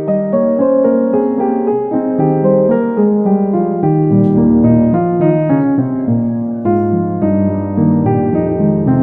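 Background piano music: a steady run of piano notes with chords in the lower register.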